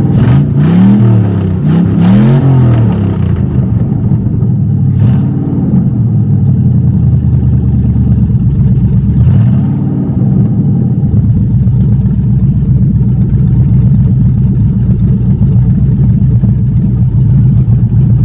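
Car engine, just brought to life on starting fluid, revved four times (the first two close together) and then settling into a steady idle.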